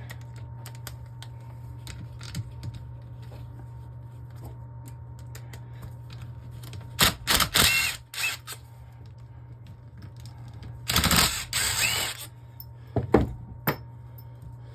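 Socket ratchet clicking in three short spells, about seven, eleven and thirteen seconds in, as bolts are loosened on an automatic transmission's valve body, over a steady low hum.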